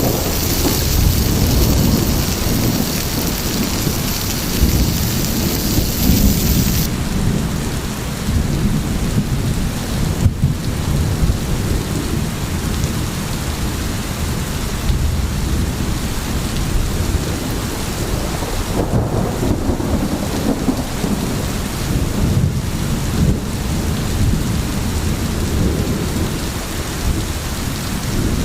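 Steady rain with a continuous low rumble of thunder. The hiss of the rain drops off abruptly about seven seconds in.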